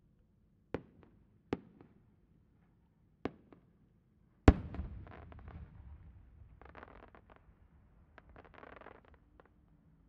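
A 10-go aerial firework shell: a few small sharp pops as it climbs, then one loud burst about four and a half seconds in with a long rumbling tail. Patches of crackling follow as the sparks cascade down.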